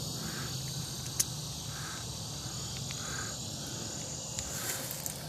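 Evening insect chorus: crickets chirping, with a steady high-pitched hiss of insects and soft chirps repeating every second or so. A single sharp click about a second in.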